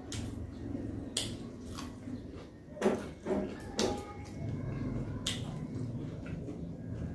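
A person chewing food with mouth clicks and lip smacks, a few sharp ones at irregular intervals, over a low steady hum.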